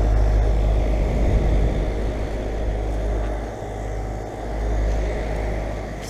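2009 Grand Aire 3-ton, 13 SEER central air conditioner condenser running: its fan and compressor give a steady low hum and a rush of air. It is loudest in the first couple of seconds and eases a little near the middle.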